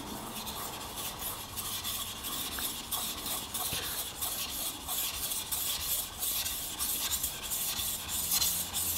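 Single-bevel Japanese kitchen knife being sharpened on a water stone: the steel bevel scraping back and forth across the wet stone in repeated strokes, pressed on the forward push and eased on the return.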